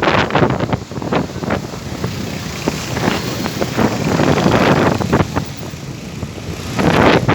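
Strong dust-storm wind gusting and buffeting the microphone, a rough rushing noise that swells and falls, with a loud gust near the end.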